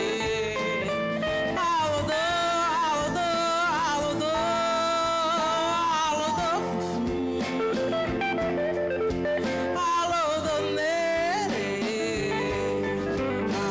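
A woman singing long, wavering held notes with vibrato over a clean electric guitar accompaniment.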